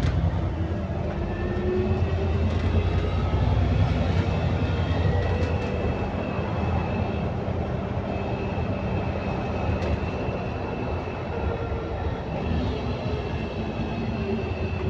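Alexander Dennis Enviro400MMC double-decker bus with a Voith automatic gearbox running on the move, heard from inside the saloon: a low engine drone with drawn-out tones over it, the strange groaning this bus makes when speeding up.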